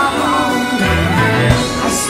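Background music: a song with a singing voice over steady bass notes.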